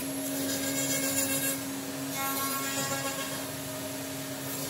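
A CNC router's Jianken 3.2 kW spindle running at a steady pitch while its cutter surfaces a wood slab, with the dense hiss of wood chips being cut.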